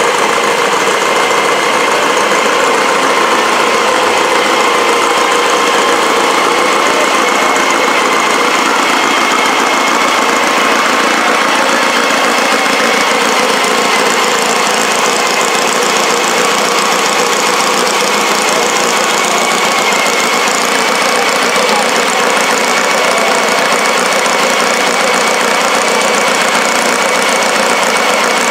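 Engines idling steadily, a loud continuous engine noise with a faint steady hum running through it.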